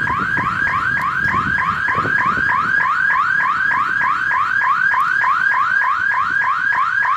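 Electronic warning alarm: a rising tone repeated rapidly, about three and a half times a second.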